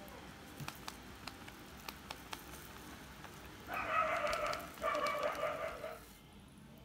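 An animal calling in the background: two pitched cries of about a second each, one right after the other, preceded by a few faint light ticks.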